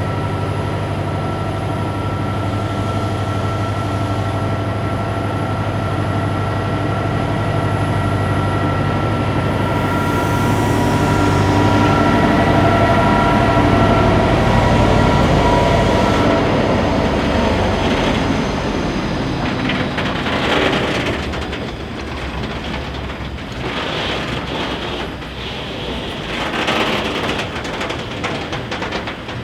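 A Euro 4000 diesel locomotive's EMD two-stroke engine working as it pulls away, its steady engine note building to a peak about halfway through. The engine then fades and gives way to the clatter of wagon wheels rolling past over the rail joints.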